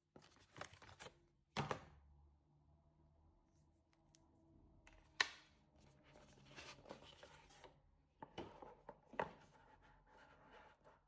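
Faint handling sounds of a watch's cardboard packaging: scattered soft taps and rustles, with one sharper tap about five seconds in.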